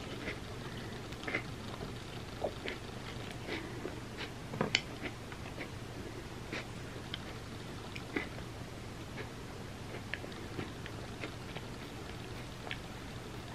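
Close-miked eating of chips with sticky chocolate mud pie dip: chewing with scattered sharp mouth clicks and smacks, the loudest about four and a half seconds in.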